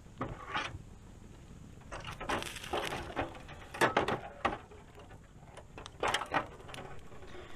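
Irregular clicks and knocks of handling as a whole chicken hung by a string over a campfire is turned by hand.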